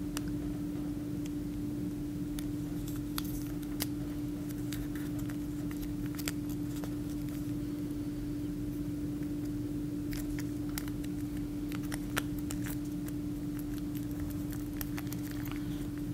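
Square origami paper being folded and creased by hand: faint, scattered crinkles and taps over a steady low hum.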